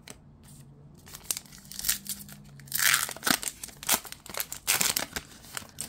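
A 2023 Topps Heritage baseball card pack's plastic wrapper torn open by hand and crinkled: a run of sharp crackles and rips starting about a second in, busiest around three seconds in.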